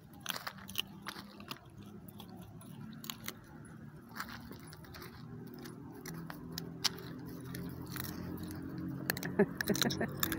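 Dog crunching and gnawing a bone, with irregular sharp cracks and clicks. A low hum builds and grows louder through the second half.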